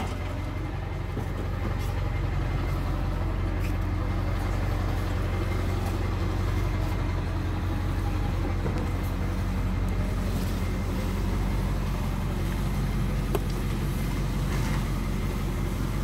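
Delivery truck's engine running steadily, a low even drone.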